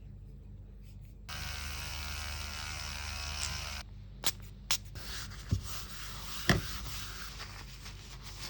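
A small electric motor, such as a hand-held rotary tool, buzzes steadily for about two and a half seconds, then several sharp clicks and taps follow over a low hum.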